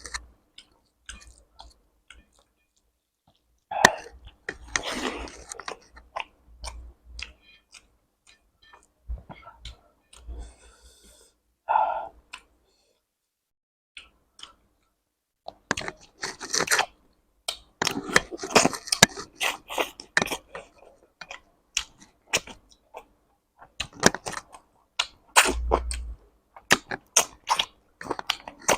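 Close-miked mouth sounds of a person eating rice and curry by the mouthful: wet chewing, lip smacks and crunching, with a few pauses between bites.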